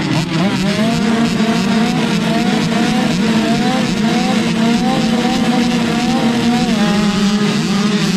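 A gate-line of small two-stroke youth motocross bikes running at the start, throttles blipped so the engine pitch rises and falls over a steady low drone. Near the end the starting gate drops and the engines rev up together as the bikes launch.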